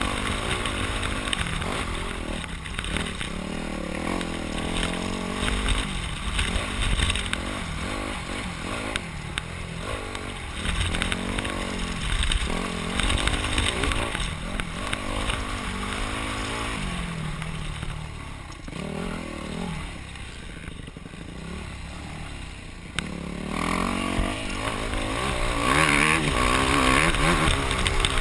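Yamaha YZ250F four-stroke single-cylinder motocross engine heard from the rider's helmet, revving up and falling back again and again as the bike is ridden hard through the gears. It eases off for a few seconds past the middle, then pulls at high revs near the end.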